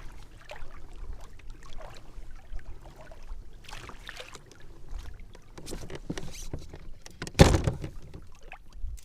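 Scattered knocks and short rustling splashes around a small fishing boat, with one loud thump about seven and a half seconds in.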